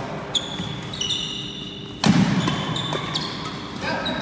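Badminton rally: sharp racket strikes on the shuttlecock and court shoes squeaking on a wooden sports-hall floor, with a louder thump about two seconds in.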